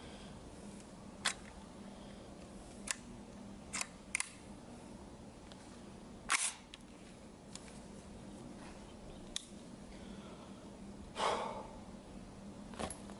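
AR-15 pistol being handled: about seven scattered metallic clicks and clacks over a faint steady hum. The loudest comes about halfway through, and a longer rattling clack comes near the end. There are no gunshots.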